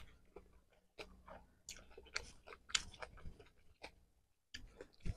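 A person chewing food with the mouth close to the microphone: faint, irregular wet clicks and smacks of eating.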